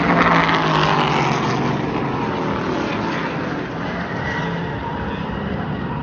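V8 street stock race cars running flat out on an oval. Their engines are loudest at the start and fall in pitch as the cars pass close by, then the field carries on at a steady drone.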